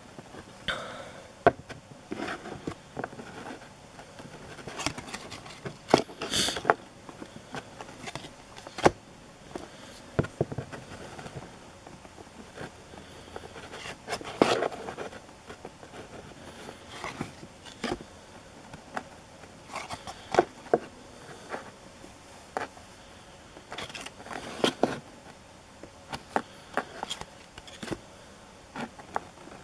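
Cardboard trading cards handled one at a time in the hands, with irregular sharp clicks and short sliding scrapes as each card is moved off the stack.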